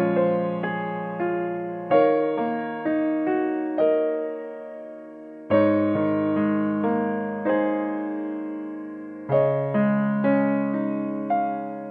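Background solo piano music: gentle phrases of struck notes that ring and fade away, a new phrase beginning about every three to four seconds.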